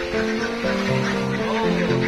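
Background instrumental music: held notes that change pitch in steps at an even, steady loudness.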